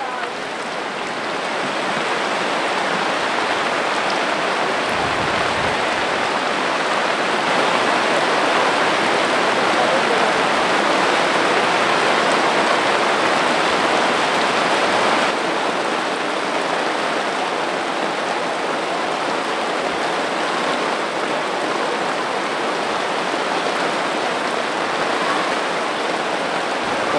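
Heavy rain pouring steadily on tents and ground, a dense even hiss that builds over the first couple of seconds and drops a little quieter about halfway through.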